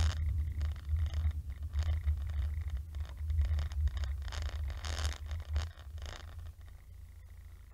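Car engine and road rumble heard from inside the cabin, with patches of scratchy hiss, fading away as the car slows to a stop at a red light.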